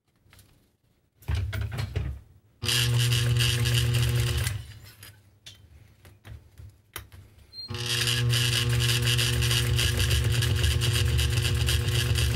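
Juki DDL-555 industrial straight-stitch sewing machine stitching through webbing strap: a short burst about a second in, a steady run of about two seconds, a pause with a single click, then a longer steady run starting a little past halfway.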